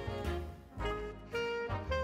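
Upbeat jazzy background music with brass and a pulsing bass line.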